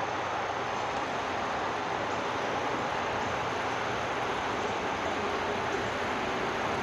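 Ocoee River rushing steadily over a rocky bed, an even, unbroken rush of water.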